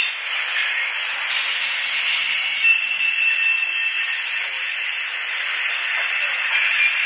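Intermodal freight cars rolling past, their steel wheels on the rails making a steady hiss with thin high-pitched squeal tones over it.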